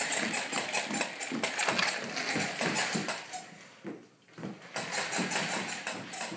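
Fisher-Price plastic pull-along puppy toy clicking and clattering as it is dragged over a wooden floor, a fast run of small clicks with a short break a little past halfway.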